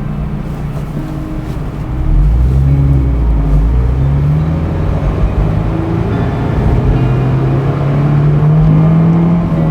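Honda S2000's 2.2-litre four-cylinder F22C1 engine pulling under acceleration. About two seconds in it gets louder and the engine note climbs, dips once, then rises steadily again before falling away near the end.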